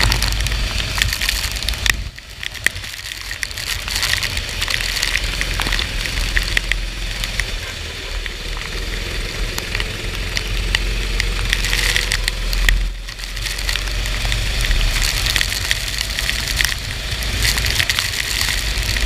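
A racing kart running on a rain-soaked track: a deep steady rumble under a constant crackle of rain and water spray. It dips briefly about two seconds in and again near thirteen seconds.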